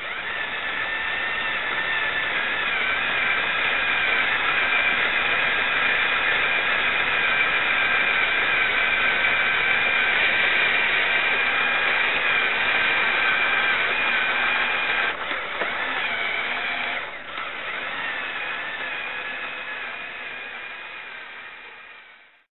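Lego Power Functions electric motors and gear train whining steadily as the remote-controlled offroader drives, the pitch wavering slightly. The sound dips briefly twice about two-thirds of the way through and fades out quickly near the end.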